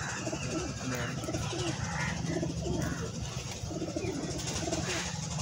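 A flock of desi high-flying pigeons cooing, with many short, low calls repeating and overlapping from several birds at once.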